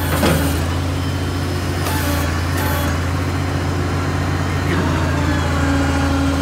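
Tree spade truck's engine running steadily while it drives the hydraulics that move the spade's cylinders and blades, with a steady hum throughout. A few short metallic clicks or knocks near the start, about two seconds in and near five seconds in.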